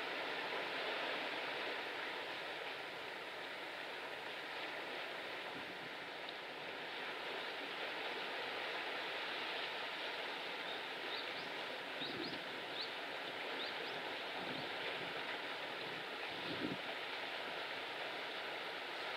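Steady rushing of wind over choppy sea with waves, with a few soft low thumps in the second half.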